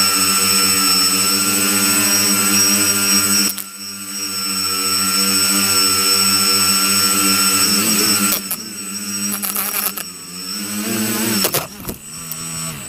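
Small quadcopter drone's propellers and motors whirring with a steady high whine, heard from the drone's own camera. The sound dips briefly a few seconds in, then the pitch wavers and slides as the drone comes down to the ground, and the motors wind down and stop at the end.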